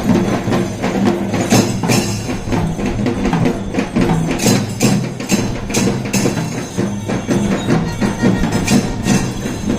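Music with percussion: frequent sharp strikes over sustained low tones.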